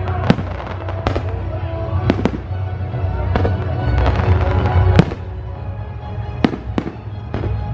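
Fireworks shells bursting in a string of sharp bangs, the loudest about five seconds in, over loud music.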